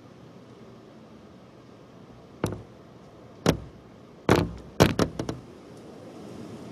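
Steady noise of a severe windstorm with six sharp knocks, starting about two and a half seconds in, the last three in quick succession.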